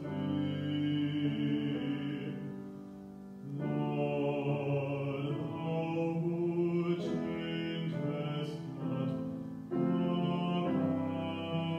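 A man singing a sacred solo to his own grand piano accompaniment, in sustained phrases with a brief lull near the third second.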